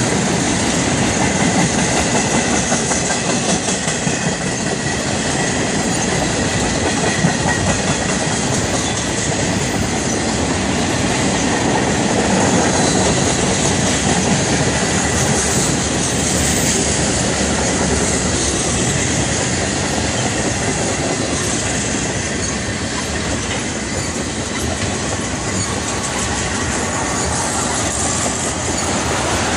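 Freight train cars rolling past at trackside: steel wheels clicking over the rail joints with a steady, loud rumble.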